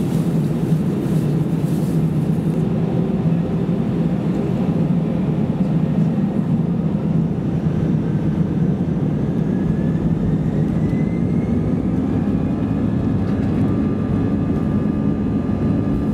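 Cabin noise of an Airbus A320-200 on the ground: the jet engines and cabin air give a steady low drone. A faint whine rises in pitch a little past halfway and then holds.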